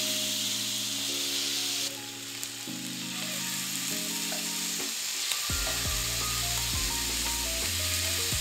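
Marinated chicken satay skewers sizzling in a hot oiled grill pan as they are laid in. The sizzle is loudest for the first two seconds, then goes on more softly, over background music of steady chords with a low bass line coming in about halfway.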